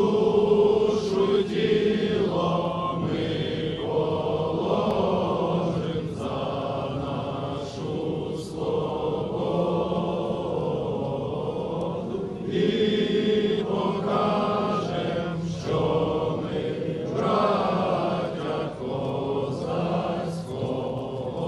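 A crowd of men and women singing together in slow phrases with short pauses between lines, like an anthem sung at a rally.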